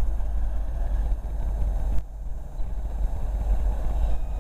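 Wind buffeting the microphone in a heavy, uneven rumble over a steady low noise from a distant approaching locomotive, with a brief lull about halfway through.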